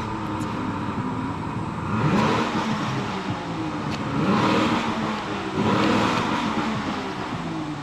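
Motor vehicles going past one after another, three swells that each build and fade, over a steady low engine hum.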